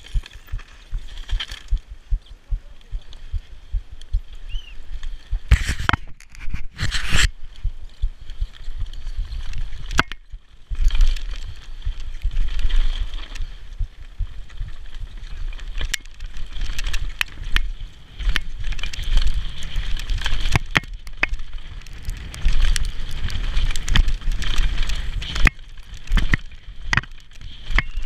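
Downhill mountain bike moving slowly over a rocky dirt trail, with scattered clicks and rattles from the bike and loose stones, and wind buffeting the microphone.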